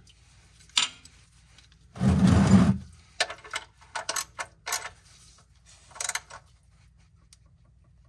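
A wrench clicking and clinking irregularly against the new oil-pan drain plug as it is threaded in and tightened, with a louder rustle of handling about two seconds in.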